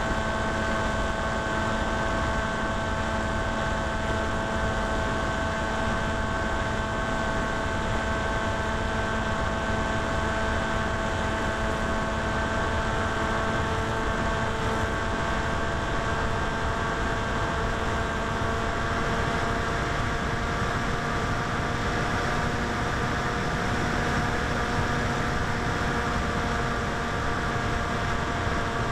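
Electric motor and propeller of a 900mm Popwing FPV flying wing running at steady throttle in flight: a steady whine of several fixed tones over a constant rushing hiss.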